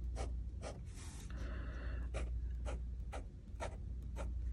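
Medium fountain pen nib scratching across notebook paper in quick repeated strokes, about two a second.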